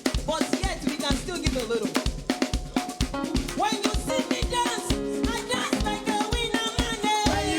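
Gospel praise-and-worship music: a drum kit keeps a steady beat of kick and snare under singing voices.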